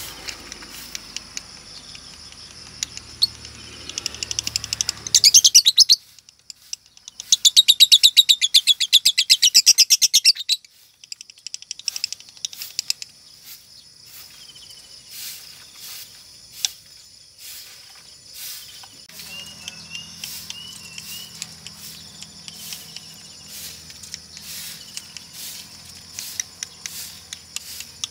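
Female Fischer's lovebird chattering: a short, rapid, loud trill about five seconds in and a longer one of about three seconds from about seven seconds in, among scattered chips and ticks and a few short chirps. Long trilling ('ngekek') from a hen is what Indonesian lovebird keepers call the sign of 'konslet'.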